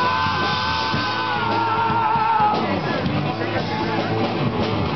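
A live rock band with a male singer. He holds one long sung note over the guitar and drums, and it ends a little past halfway, leaving the band playing on.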